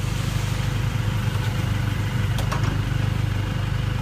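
A vehicle engine idling steadily, with a couple of light clicks about two and a half seconds in.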